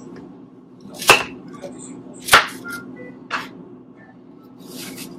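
Three sharp knocks about a second apart, a kitchen knife cutting green apple into small pieces and striking the chopping board, over soft background music.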